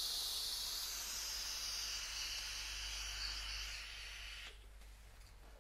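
Aerosol smoke spray hissing in one steady burst of about four and a half seconds, then cutting off: smoke being released.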